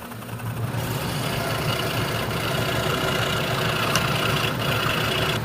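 Scroll saw running and cutting out a wooden clock part, a steady machine sound that fills back in within the first second after a brief lull.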